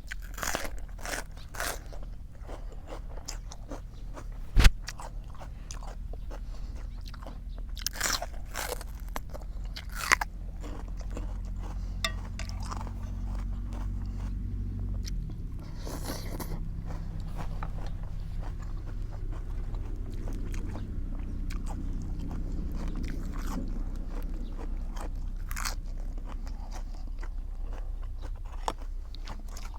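Close-up chewing and crunching of crisp food, in short irregular crunches, over a steady low hum. A single sharp click about four and a half seconds in is the loudest sound.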